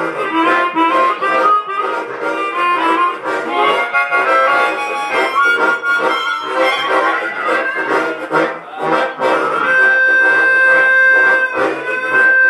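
Harmonica trio playing an up-tempo tune: quick runs of reedy notes over chords, with one long high note held for about two seconds near the end.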